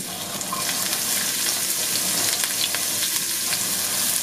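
Chopped onion dropping into hot olive oil in a small nonstick frying pan and sizzling steadily, with a wooden spoon scraping more onion off a cutting board into the pan.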